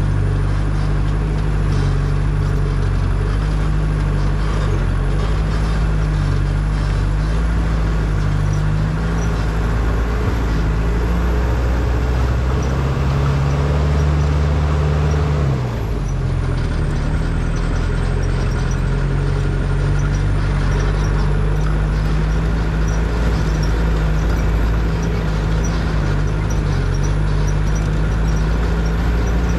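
Engine of an open-top jeep-style 4x4 running steadily at low speed as it crawls along a rough, rocky trail. About halfway through, the engine note drops and shifts briefly, then settles again.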